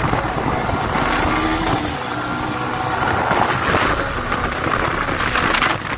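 Yamaha sport motorcycle's engine running at road speed under way, with wind rushing over the microphone.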